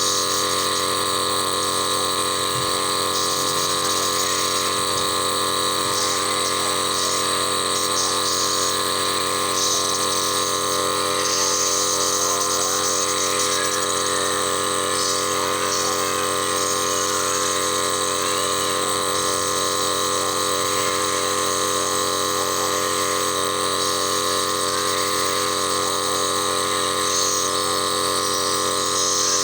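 Compressor nebulizer running: a steady electric motor and pump hum with a constant buzzing pitch and a hiss of air above it.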